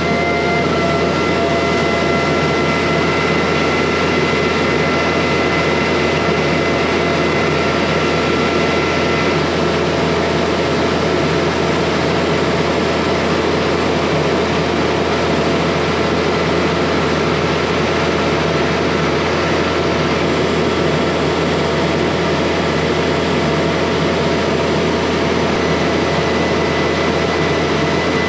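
An engine running steadily at high speed after revving up, with a constant hum and rushing noise. A thin high whine over it cuts out about a third of the way in and returns near the end.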